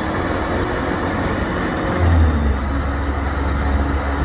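Kubota DC105X rice combine harvester running while it cuts and threshes, a steady diesel engine drone under the clatter of the threshing works, with a brief surge about two seconds in.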